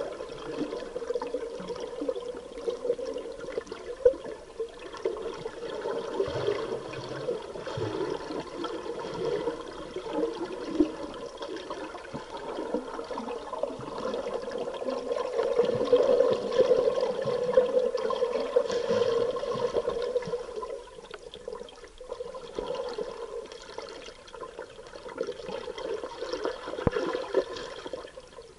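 Scuba exhaust bubbles gurgling and rushing underwater, heard muffled through the camera's waterproof housing. The bubbling is loudest about halfway through and quieter over the last several seconds.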